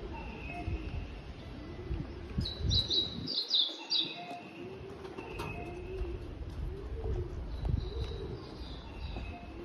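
Pigeons cooing over and over, with short bursts of quick high chirping from small birds.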